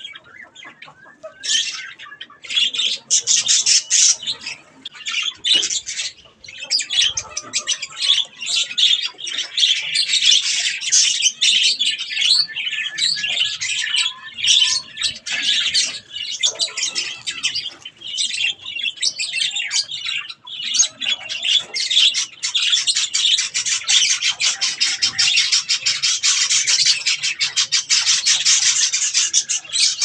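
Budgerigars chattering and chirping in a dense, almost unbroken stream of quick high calls, starting about a second and a half in after a short lull.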